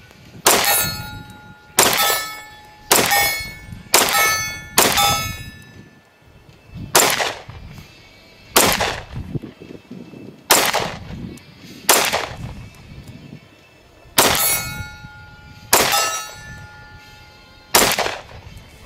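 Arex Delta M 9mm pistol firing twelve shots: five about a second apart, then seven more spaced one and a half to two seconds apart. Many of the shots are followed by a short metallic ring.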